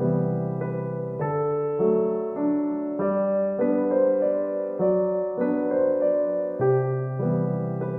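Background music: an electric piano playing a gentle melody over a steady bass line, a new chord about every half second.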